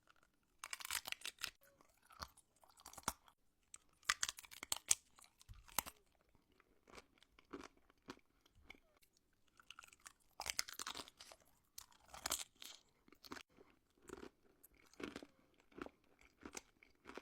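Homemade wax candy being bitten and chewed right up at the microphone: bursts of crunching every few seconds, the biggest about a second in, around four to five seconds in and around ten to twelve seconds in, with quieter chewing between.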